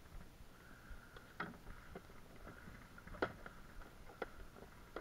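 A few light knocks and taps on a plastic kayak, spaced about a second apart, as a fishing rod and jig are handled in the boat.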